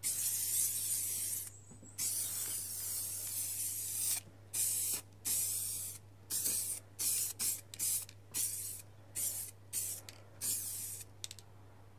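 Aerosol can of grey primer spraying a light tack coat onto an alloy wheel in hissing bursts: two longer sprays in the first four seconds, then a quick series of short passes.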